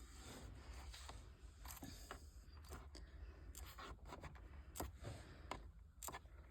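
Faint scattered clicks and light rustling of small parts being handled, over a low steady hum; close to silence.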